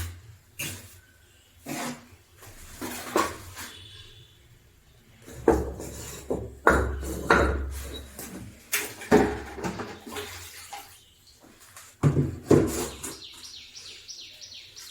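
Irregular knocks and clatter, some with a low hum beneath, and a quick run of short high chirps near the end.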